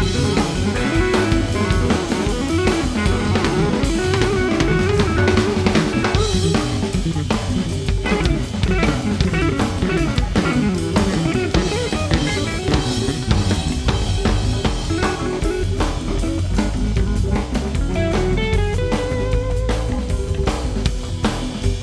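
Background music: a band track with drum kit, bass and guitar at a steady beat.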